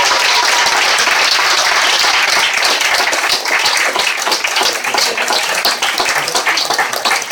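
Audience applauding, dense at first and thinning into separate claps in the second half.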